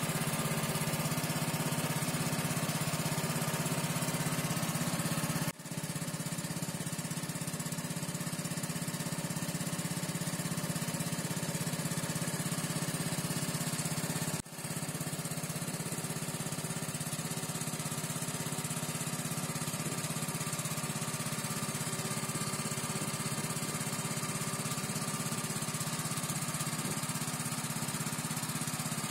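A wooden river longboat's engine running steadily under way, a continuous low drone. The sound drops out briefly twice, about five and fourteen seconds in.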